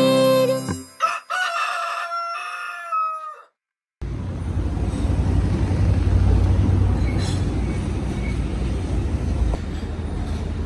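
A rooster-crow sound effect ends the intro jingle, one drawn-out call of about two seconds, then the sound cuts out briefly. From about four seconds in, a steady low rumble of street background noise.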